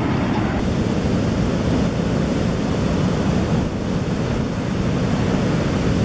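Ocean surf breaking on the beach: a steady, rushing noise of waves.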